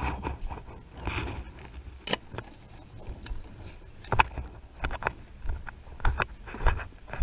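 Scattered knocks, clicks and rustles of gear being handled over a low wind rumble on the microphone, then footsteps on the wet, muddy lane about every half second near the end.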